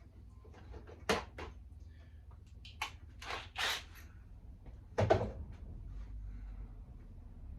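A few separate knocks and short scrapes from tools and parts being handled, the loudest knock about five seconds in, over a low steady hum.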